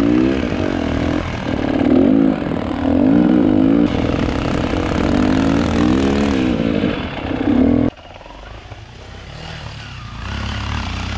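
Dirt bike engine close by, revving up and down over and over, its pitch rising and falling about once a second. About eight seconds in it cuts suddenly to a quieter, lower engine sound.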